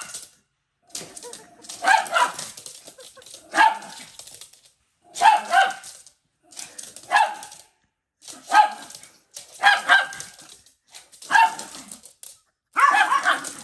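Small dogs barking in play: about eight bursts of sharp barks, one every second and a half or so, with short quiet gaps between.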